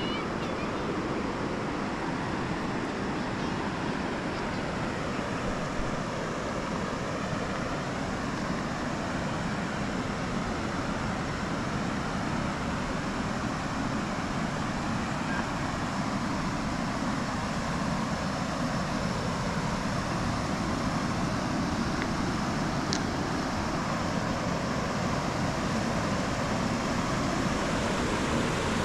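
Steady rushing of river water flowing past the stone embankment, an even noise with no breaks.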